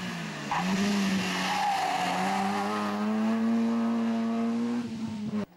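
Peugeot 206 rally car's engine at full throttle through a corner: the revs dip briefly about half a second in, then climb steadily for about three seconds as it pulls away. The sound cuts off suddenly near the end.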